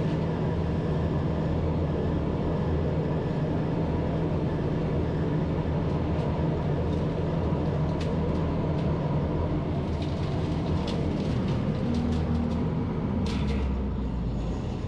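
Truck-mounted leaf vacuum running steadily, a low engine and blower drone, with scattered clicks and rattles in the last few seconds.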